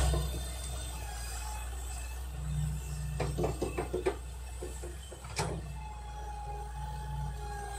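Mobile crane's engine idling as a steady low rumble. A quick series of knocks comes about three to four seconds in, and one sharp knock a little over five seconds in.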